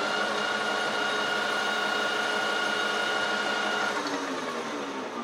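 Metal lathe running: the spindle speeds up at the start, runs steadily with a high whine, then slows down about four seconds in before the sound cuts off.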